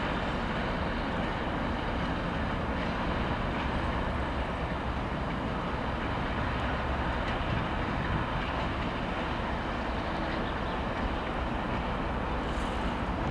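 ChME3 diesel shunting locomotive's six-cylinder engine running steadily as it hauls a freight train. The container flatcars' wheels rumble on the rails.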